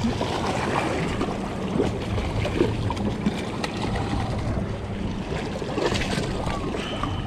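Water splashing and washing against jetty rocks as a hooked small snook thrashes at the surface while it is reeled in.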